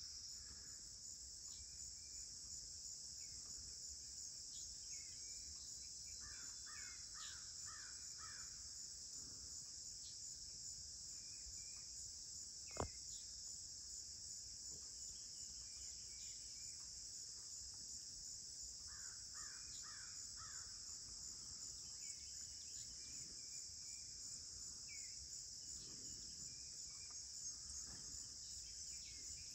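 Faint dawn chorus of crickets and other insects, a steady high-pitched drone, with crows cawing in two runs of four or five caws and a few short bird calls. A single sharp click about thirteen seconds in.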